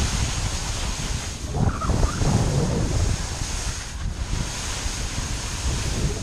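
Wind buffeting the camera microphone during a fast ski descent, a steady rushing noise, with the skis sliding over snow. A brief louder, rougher patch comes about two seconds in.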